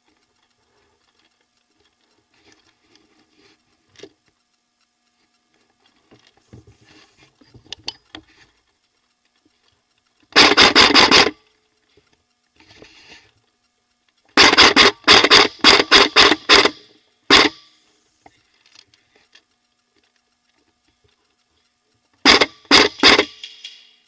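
Airsoft electric gun firing: one unbroken full-auto burst of about a second, then a quick run of about eight shots, a single shot, and a final short burst. Faint rustling and movement come in between.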